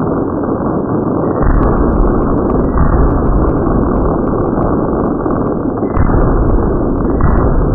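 Fireworks display going off in a dense, continuous barrage, with heavier deep booms setting in about a second and a half in and again around six seconds in.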